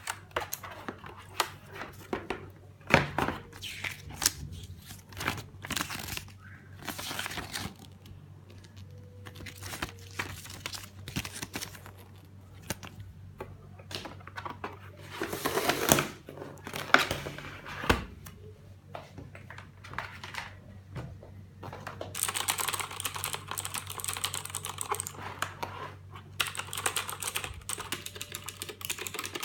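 Redragon K300 mechanical keyboard and its packaging being handled: scattered clicks, knocks and rustling. Near the end, continuous typing on its clicky blue switches begins.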